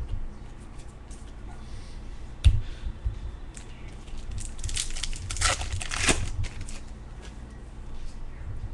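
Baseball card pack wrapper crinkling and tearing as a pack is opened and the cards are handled, with a single sharp knock about two and a half seconds in.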